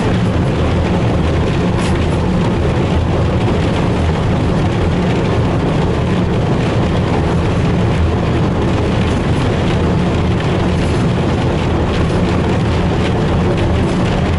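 Class 03 diesel shunter's Gardner eight-cylinder diesel engine running steadily as the locomotive travels along the line, with the rumble of its wheels on the track.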